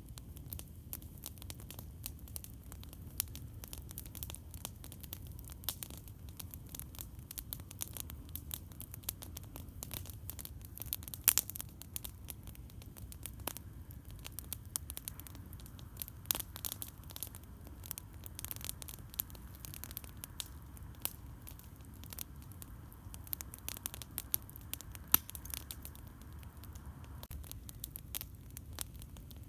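Campfire crackling: irregular sharp pops and snaps over a steady low rumble, with two louder pops, one about a third of the way in and one near the end.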